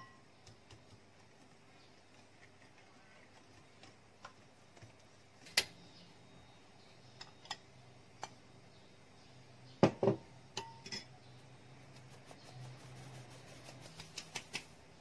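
Scattered knocks and clinks of kitchen utensils against a glass mixing bowl. There is a sharp clink about five and a half seconds in, the loudest double knock with a brief ring near the middle, and a run of small quick taps near the end.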